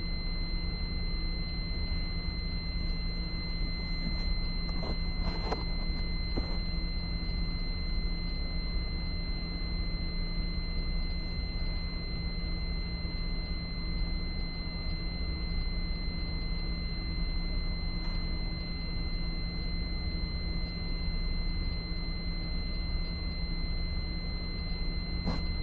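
Fire alarm control panel's trouble buzzer sounding a steady, unbroken high-pitched tone, signalling a trouble condition on the system, over a low electrical hum. There are a few soft clicks about five seconds in.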